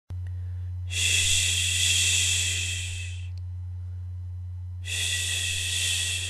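Two long, airy, breath-like hisses, each lasting about two seconds with a pause between them, over a steady low hum.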